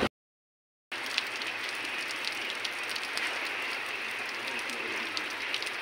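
After a brief silence, steady rain begins about a second in: a dense, even patter of drops falling on shallow seawater.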